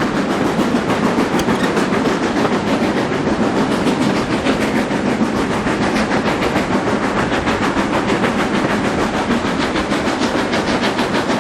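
Steam-hauled passenger train running behind a GWR Manor Class steam locomotive, heard from aboard: a steady rumble with a fast, even rhythm of beats.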